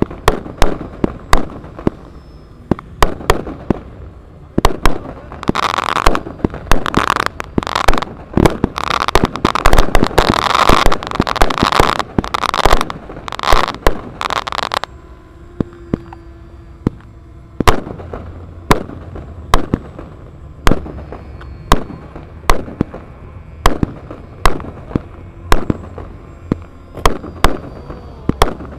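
Battle-effect pyrotechnic charges and firecracker reports going off in sharp single bangs about once or twice a second, with a dense crackling barrage from about six to fifteen seconds in. Faint model aircraft engines drone underneath.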